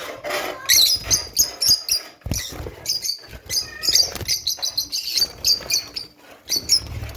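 Lovebirds chirping and chattering: many short, sharp, high-pitched calls in quick succession, overlapping one another.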